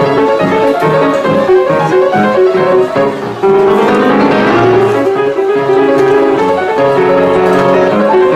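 Yamaha grand piano played fast and continuously, with dense runs and a quick upward sweep of notes about halfway through.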